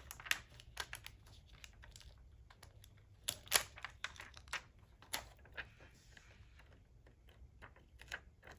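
Light, irregular clicks and crackles of plastic transfer tape and adhesive vinyl tapped and handled by long fingernails, as the outline of a vinyl heart is lifted off its backing.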